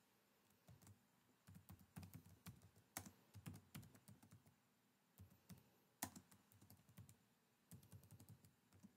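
Faint typing on a computer keyboard: runs of quick keystrokes in uneven bursts, with short pauses between.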